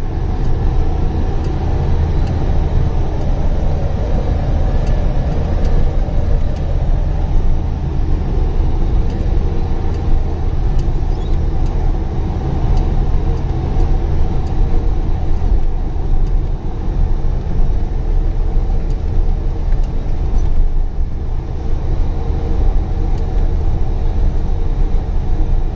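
Loaded goods truck's engine heard from inside the cab, running steadily as it pulls uphill on a rough dirt track, a constant low rumble with light clicks and rattles from the cab as it rides over the ruts.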